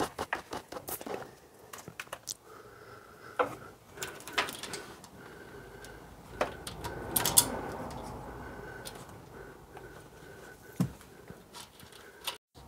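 A new timing chain being fitted by hand over the sprockets of a Hyundai i10's 1.0 litre Kappa engine: scattered light metallic clicks and clinks of the chain links and parts being handled.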